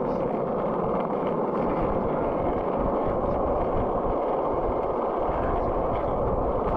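Steady rushing noise of wind on the microphone and tyres rolling on pavement as the bicycle rides along at speed.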